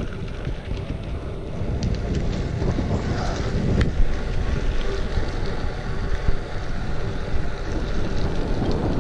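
Wind buffeting the microphone of a handlebar-mounted camera on a moving bicycle, a steady low rush, with scattered sharp clicks and knocks, the loudest about four seconds in.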